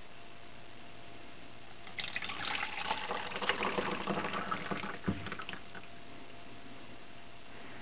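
Broth and fat drippings poured from a crockpot's crock into a plastic grease separator cup, splashing and filling for about three and a half seconds, with a short knock near the end of the pour.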